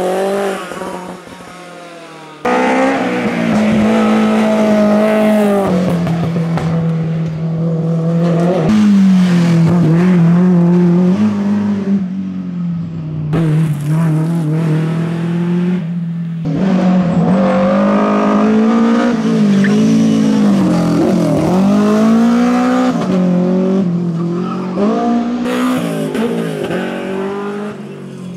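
Historic rally car engines at full throttle, revving up and falling back through gear changes as cars pass, with some tyre squeal. The sound cuts abruptly from one car to another several times.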